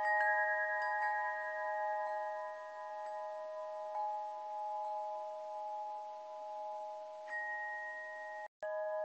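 Chimes ringing in a steady, sustained chord of several clear tones, with faint new strikes about once a second. A higher tone joins a little past seven seconds in, and the sound cuts out completely for a split second shortly after.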